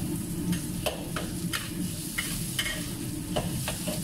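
Oil sizzling in a wok with chopped ingredients frying, while a metal spatula scrapes and clacks against the wok about nine times, irregularly.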